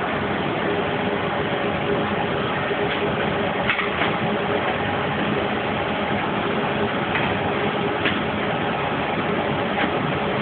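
Steady hum and hiss, with a few light clicks about four, seven, eight and ten seconds in.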